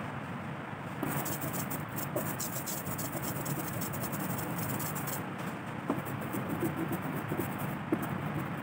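Rubber brayer rolling through tacky teal printing ink on an inking slab and across a carved woodcut block, a steady noisy rolling sound with a few light clicks.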